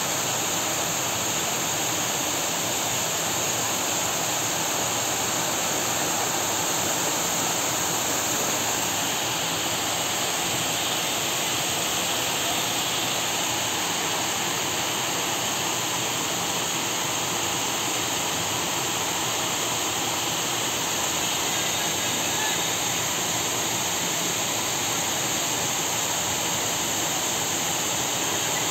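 Heavy rain falling steadily, a continuous, even rush of downpour.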